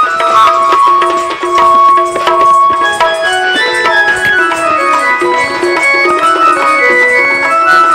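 Instrumental interlude of Sambalpuri dand folk music: a melody instrument plays a tune of held notes over a steady hand-drum rhythm.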